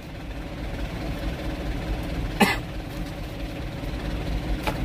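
Truck engine idling steadily, heard inside the cab, with a single short cough about two and a half seconds in.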